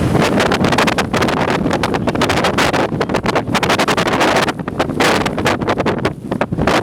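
Blizzard wind at hurricane force gusting hard and buffeting the microphone in loud, rapid, uneven blasts, easing briefly a couple of times.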